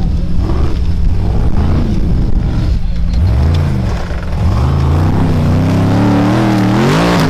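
Car engine revving hard, its pitch rising and falling several times, then climbing steadily to a peak near the end.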